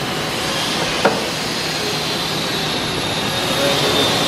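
Dainichi DMG-16 engine lathe running under power, a steady mechanical gear noise with a faint high whine. A single sharp click about a second in.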